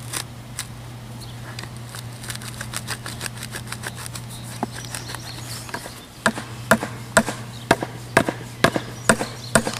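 Rink board bracket being set and driven into the ground: light knocks at first, then sharp regular knocks about twice a second through the second half. A steady low hum runs underneath.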